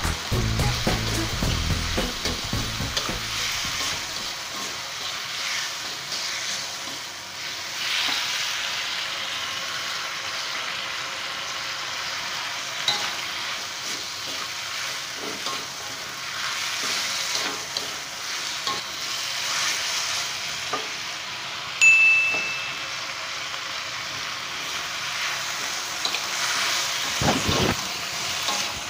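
Vegetables sizzling in a steel wok as a slotted metal spatula stirs and scrapes them around. A brief high ringing tone sounds about two-thirds of the way through, and the spatula knocks against the wok a few times near the end.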